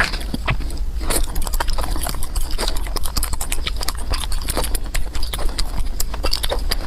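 Close-miked eating: fast wet chewing and smacking, a quick irregular run of mouth clicks and crunches.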